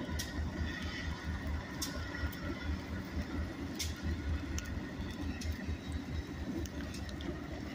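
Freight train rolling past: the Ohio Central diesel locomotive goes by, then trash cars follow with a steady low rumble and a few sharp clicks.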